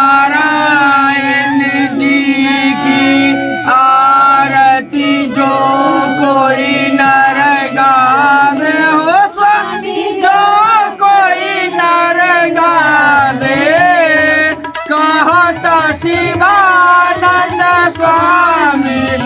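Hindu devotional aarti song: a singing voice with instrumental accompaniment, over a steady low note held underneath.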